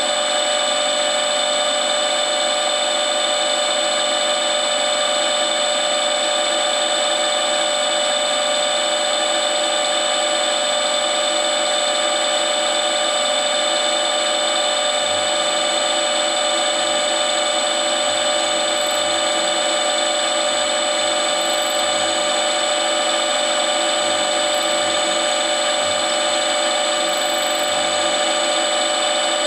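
Milling machine running at high spindle speed, a small end mill cutting a flat into a round bar: a steady machine whine made of several fixed tones, unchanging throughout.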